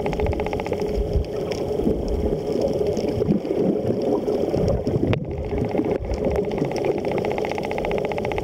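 Underwater ambience: a muffled rush of water with a steady hum and a fast, even pulsing. It drops out briefly about five seconds in.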